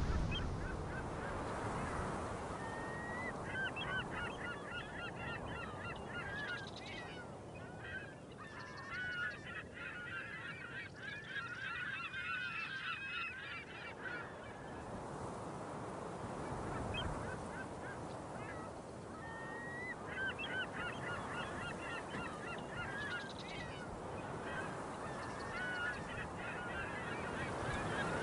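A flock of birds calling with many quick, wavering cries, in two long bouts, over a steady wash of sea surf.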